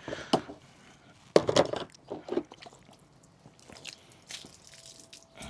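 Handling noises: a sharp knock about one and a half seconds in, followed by a few short scrapes and rustles.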